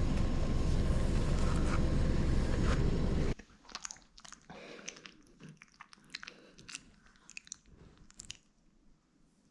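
A steady loud rumbling noise cuts off abruptly about three seconds in. What follows is quiet, with faint irregular crunching and chewing clicks, typical of puppies eating.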